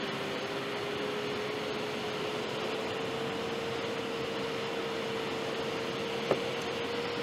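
Steady rush of air over a glider's canopy, heard inside the cockpit, with a single thin tone that slowly rises in pitch throughout and one short click about six seconds in.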